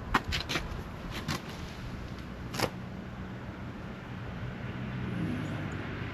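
Hand tools clicking and tapping against the steel fittings of a backhoe steering cylinder: a cluster of sharp clicks in the first second and a half and a louder one a little past two and a half seconds, over a low steady hum.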